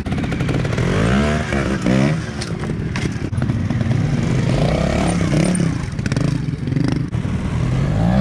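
Trials motorcycle engines revving in short blips, the pitch rising and falling again and again as the bikes climb over rocks, with a few sharp knocks mixed in.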